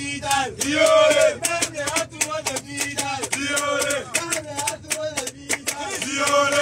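A group of men singing a celebration chant together, with a quick steady beat of sharp hand-clapped or slapped hits keeping time, inside a bus.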